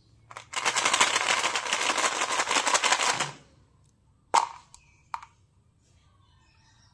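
Small plastic bottle of Mentos chewing-gum pellets shaken hard, the pellets rattling for about three seconds. Then a sharp plastic click and a second, lighter click a moment later as a small plastic lid snaps open.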